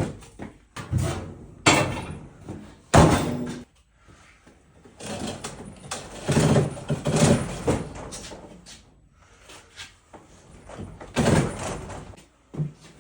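Knocks, bangs and scraping of things being handled and moved around, with the loudest bang about three seconds in and longer stretches of scraping and rattling after it.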